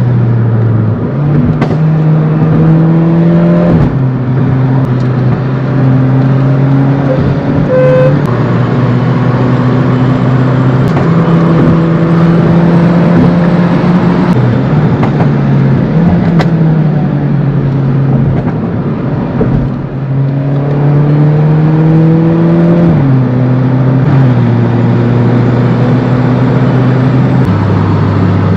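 Volkswagen Polo GT TSI with an aftermarket Remus exhaust, heard from inside the cabin under hard acceleration. The engine note climbs in pitch over a few seconds and then drops suddenly at each upshift of the DSG gearbox, which is in manual mode; there are several shifts, the clearest about 4, 14 and 23 seconds in.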